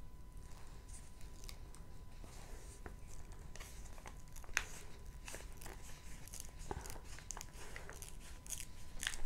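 Faint crinkling and crackling of a diamond painting canvas's paper release sheet being handled and smoothed down, scattered small crackles that grow busier and a little louder from about halfway through.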